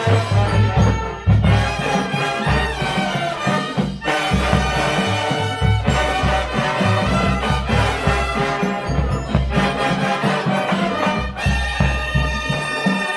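Drum and bugle corps playing: brass horns in sustained chords over marching bass drums and percussion.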